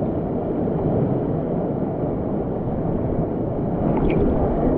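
Steady rush of a mountain torrent's water pouring through the canyon.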